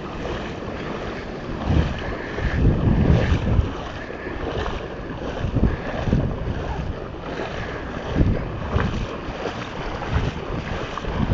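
Floodwater sloshing and splashing around a person's legs as they wade knee-deep, swelling in uneven surges with the strides, with wind buffeting the microphone.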